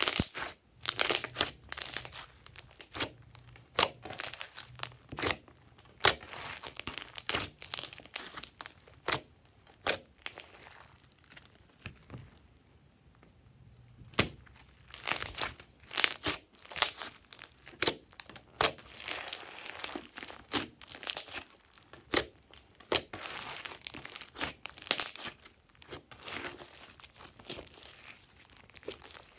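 Glossy slime being squeezed and stretched by hand into a thin sheet: a run of irregular sticky pops and crackles as the film tears, with a quieter lull around the middle.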